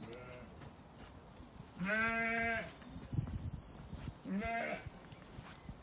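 Zwartbles sheep bleating: a long bleat about two seconds in and a shorter one at about four and a half seconds. A brief high-pitched tone, the loudest sound here, sounds between them.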